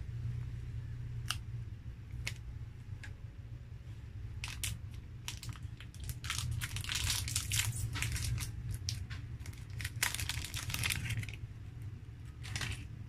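Shiny plastic wrapper of a Fudgee Barr snack cake crinkling and tearing as it is pulled open: a few single crackles at first, then several seconds of dense crinkling, and one more crinkle near the end.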